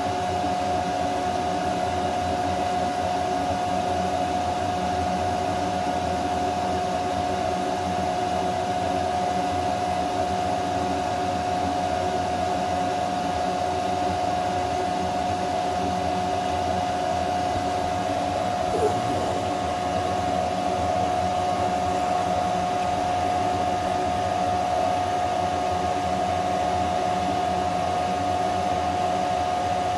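Steady whir of the cooling fans and air-assist airflow of a 10-watt blue diode laser engraver running a job, with a steady whine over the rushing air.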